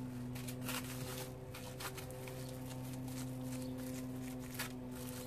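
Plastic cling film crinkling and rustling in scattered short crackles as hands roll and press a wrapped log of minced meat, over a steady low hum.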